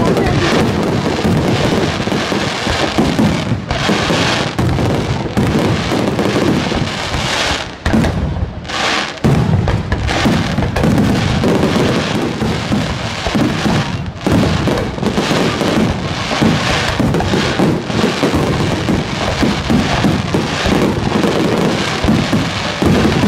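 Castillo fireworks display in full barrage: aerial shell bursts, crackle and rising comets fired in rapid succession, merging into a continuous din with a brief lull about eight seconds in.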